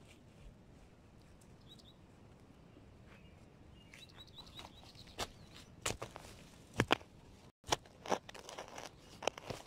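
A bird chirps a few short high notes, then from about halfway in come irregular crunching and rustling noises of soil and plants being handled with gloved hands.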